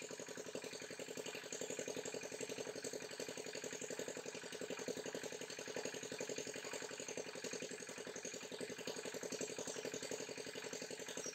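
A small engine running steadily with a rapid, even chugging beat.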